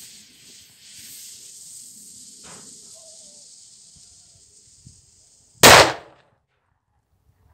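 A wood firecracker's lit fuse hissing steadily, fading over the first five seconds, then one loud bang as the firecracker explodes.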